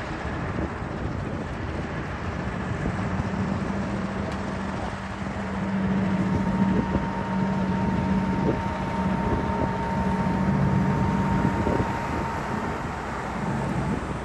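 Westland Lysander's Bristol Mercury nine-cylinder radial engine running at low power as the aircraft taxis, a steady low drone that grows a little louder midway through.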